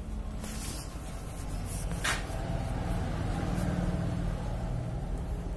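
Steady low mechanical hum, like a machine running, with a short sharp scrape about two seconds in.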